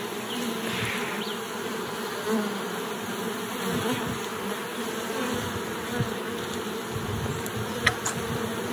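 Honeybees of an opened nucleus colony buzzing, a steady hum of many bees over the frames, with a sharp click near the end.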